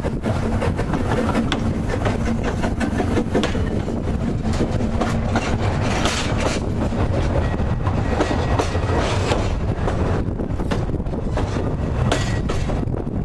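Narrow-gauge steam train running past, loud, its carriage wheels clicking over the rail joints throughout.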